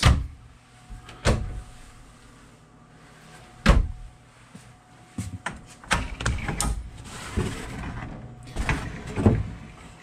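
Wooden pantry cabinet doors being handled and shut: a sharp click at the start and another about a second in, then a heavy thump about four seconds in, followed by a stretch of scuffs and knocks.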